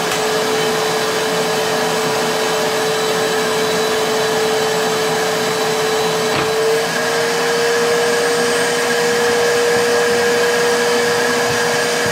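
Vacuum motor of a homemade vacuum former running steadily, sucking a heated plastic sheet down over molds on the perforated platen. It has a steady hum under a loud rushing hiss. There is a click about six and a half seconds in, and just after it the hum steps up slightly in pitch.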